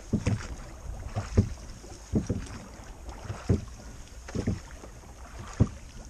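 Oars working a rowing boat: low knocks and splashes about once a second, with some wind on the microphone.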